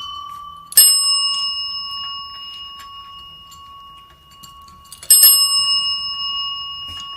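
A small metal bell struck twice, about four seconds apart, each strike ringing out clear and slowly fading.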